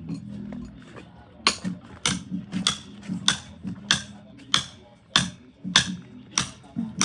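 Steady, regular hammer blows on masonry, about one every half-second or so, starting a second and a half in. Music plays underneath.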